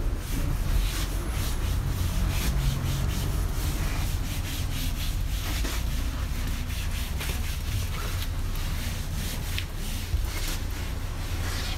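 Wash mitt scrubbing foam-covered car paint by hand: a run of quick rubbing strokes, over a steady low rumble.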